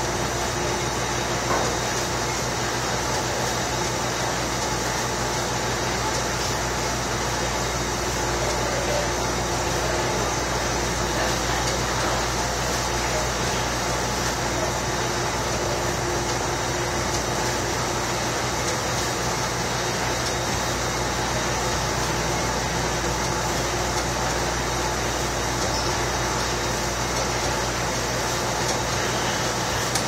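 Jackson commercial dishwasher running a cycle: a steady machine noise with a low hum, and one short click about a second and a half in.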